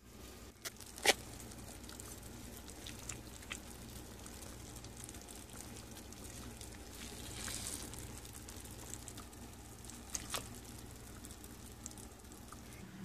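Glass slow-cooker lid lifted off, with a sharp clink about a second in. Later come a few lighter clicks and scrapes of a fork working in the crock, over a low steady hum.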